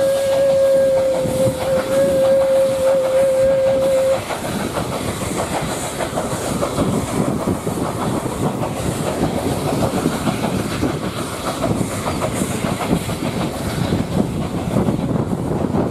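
A WP-class steam locomotive's whistle held as one steady tone that cuts off about four seconds in, over the running train's wheels clicking rapidly on the rails, which carries on alone after the whistle stops.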